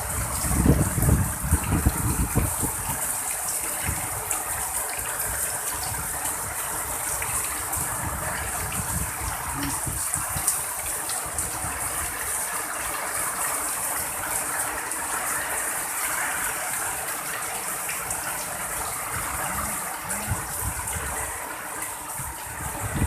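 Heavy rain pouring steadily in a strong windstorm, with gusts of wind buffeting the microphone, hardest in the first couple of seconds.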